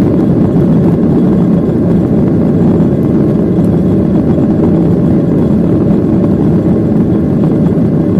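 Jet airliner cabin noise heard over the wing: the engines running with a steady, even rumble as the plane taxis on the ground.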